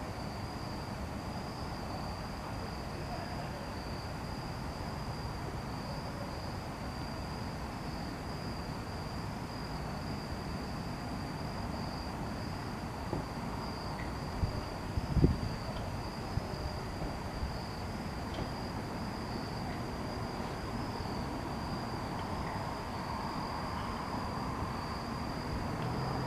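Steady high trilling of night insects, one unbroken pitch, over a low even background rumble. A few brief knocks come about halfway through.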